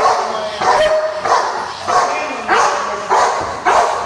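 Police dog barking over and over at a steady pace, about three barks every two seconds, as it works the decoy in bite training.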